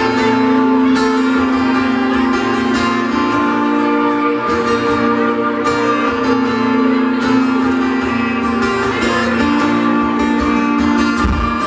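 Live country band playing the instrumental opening of a slow song, led by guitar with long held notes, before the vocals come in. Recorded loud and rough from the audience.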